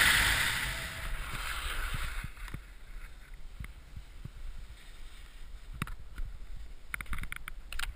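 Wind rushing over a helmet-mounted GoPro fades away over the first couple of seconds as the ski jumper slows to a stop. After that come faint rustles and scrapes of snow and clothing, with a few sharp clicks near the end.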